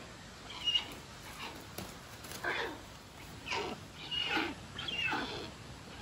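An animal's calls: about five short calls, each falling steeply in pitch, spaced roughly a second apart.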